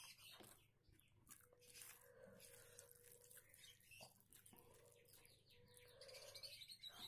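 Faint eating sounds: small wet mouth clicks and smacks of chewing, with soft squelches as fingers mix rice and curry on a plate.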